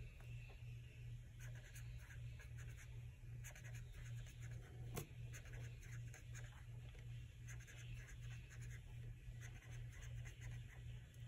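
Black felt-tip marker writing on planner paper: faint, quick scratchy strokes with a sharper tick about five seconds in, over a steady low hum.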